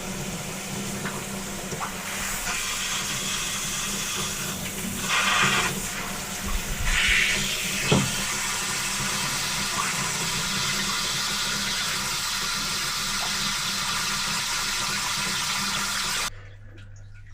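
Water hissing and spraying from a leaking pipe connection on a pressurised chilled-water line, over a steady low machinery hum, with a couple of brief louder surges. It cuts off suddenly near the end. The leak shows the taped connection has not sealed.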